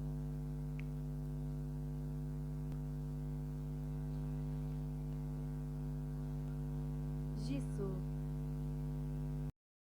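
Steady electrical mains hum, a constant drone made of several even tones, with a short faint sound about seven and a half seconds in. It cuts off abruptly just before the end.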